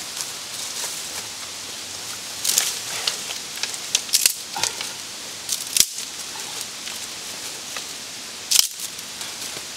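Dry branches and twigs being snapped by hand, with several sharp cracks a second or more apart and rustling of dry leaf litter.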